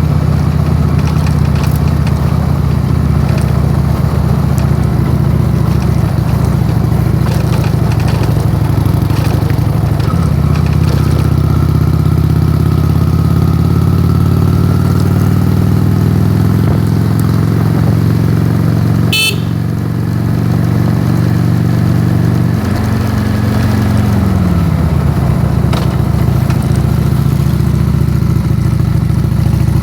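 Honda Shadow V-twin motorcycle engine running under way, its pitch climbing slowly, then falling away as the bike slows about two-thirds through. A single sharp click sounds a little past halfway.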